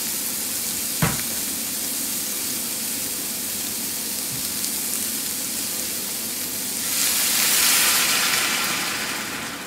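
Diced pork with garlic and onion sizzling in a hot stainless-steel frying pan, with a single knock about a second in. About seven seconds in, a cup of water hits the hot pan and the hiss swells loudly into a burst of steam, then dies down toward a softer simmer.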